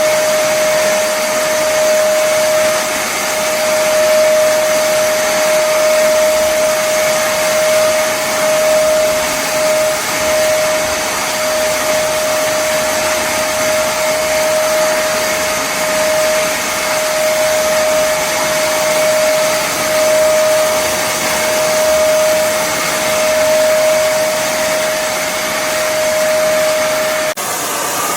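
Kärcher WD 2 Plus wet and dry vacuum cleaner running steadily: a continuous rush of air with a steady motor whine. The whine stops abruptly near the end.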